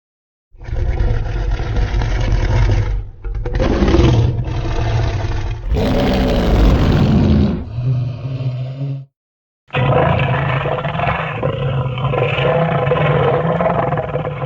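A series of designed Godzilla-style monster roars, each one to a few seconds long and starting and stopping abruptly, with a short silence partway through before a longer final roar.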